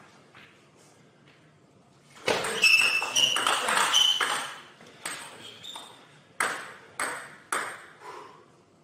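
Table tennis rally: the ball pinging sharply off the rackets and the table. The hits start about two seconds in, come thick and fast for a couple of seconds, then fall into single strikes about every half second.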